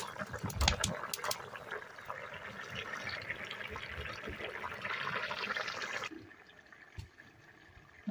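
Chicken curry boiling hard in a wok after the water has gone in: a dense bubbling and spitting, with a few loud pops in the first second or so. It cuts off suddenly about six seconds in, leaving quieter surroundings with a single knock about a second later.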